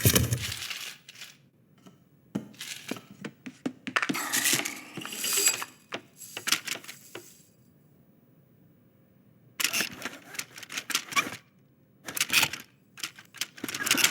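Film sound effects: bursts of rapid clicks and clattering from small hard objects, with a pause of about two seconds past the middle before the clatter resumes.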